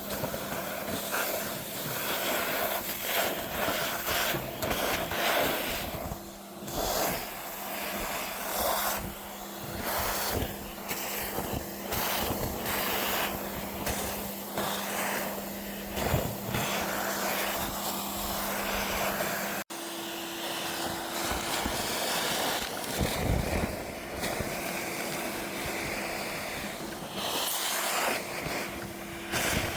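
Gutter vacuum running, its steady hum under an uneven rushing and rattling as moss and debris are sucked up the hose. After a sudden break about twenty seconds in, the hum sits higher.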